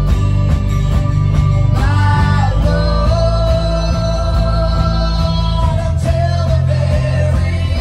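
Live band playing a worship song: strummed acoustic guitar, drum kit and keyboard, with a lead voice singing over them.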